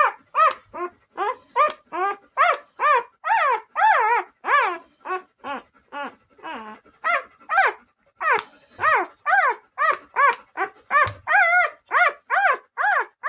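Bernese Mountain Dog puppy whimpering and crying in a rapid run of short, high-pitched cries, about three a second, each rising and falling in pitch.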